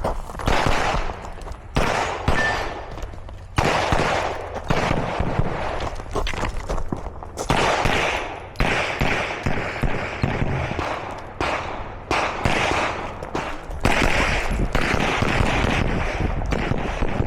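Pistol shots fired one after another at uneven intervals through a course of fire, each shot sharp with an echo trailing after it. Under the shots there is a steady low rumble.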